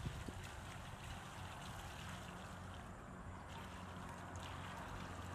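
Muddy water pouring steadily from a plastic bucket and splashing onto wet ground.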